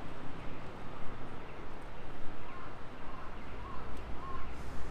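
Busy city street ambience with a run of four short, bird-like calls midway through, and a steady low hum setting in near the end.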